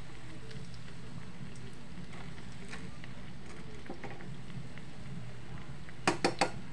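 Hot oil sizzling steadily as bread rolls deep-fry in a small pot, with light crackles and pops. About six seconds in come three quick, sharp clicks.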